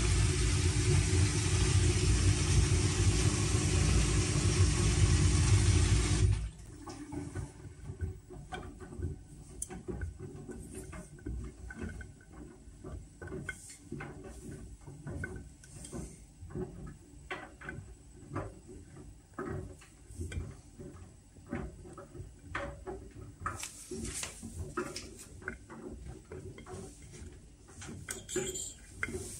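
Whirlpool washing machine on its Steam Refresh cycle: water rushing through it with a steady hum, which cuts off suddenly about six seconds in. After that come quieter, irregular light clicks and ticks from inside the machine.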